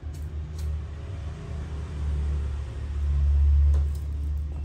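A low rumble that swells to its loudest about three and a half seconds in, then eases off, with a few faint clicks near the start.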